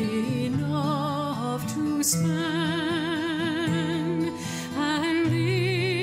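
Background music: a voice holds long notes with vibrato over steady low accompaniment notes.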